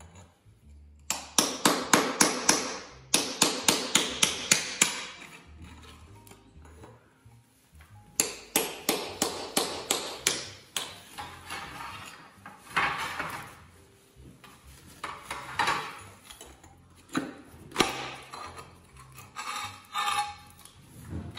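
Small hammer chipping broken ceramic floor tiles and tile adhesive off a floor: runs of rapid sharp strikes, about five a second, then slower, scattered knocks.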